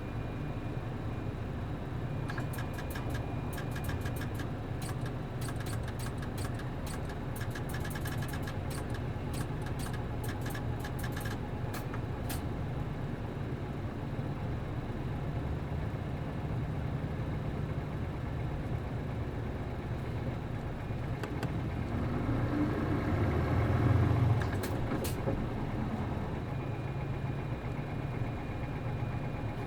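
A bus's MD92TJ diesel engine idling steadily, with a run of light clicks and rattles early on. About 22 seconds in, the engine revs up with a rising note, pulling away, then eases off and settles.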